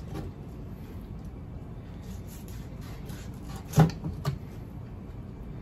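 Chef's knife cutting pork ribs on a wooden cutting board, with quiet slicing and one sharp knock of the blade on the board about two thirds of the way through, followed quickly by two lighter knocks.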